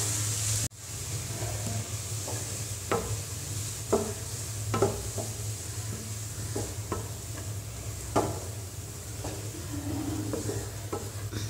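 Wooden spatula stirring and scraping shredded cabbage and grated coconut around a nonstick frying pan, knocking against the pan about once a second, over a faint sizzle from the hot pan.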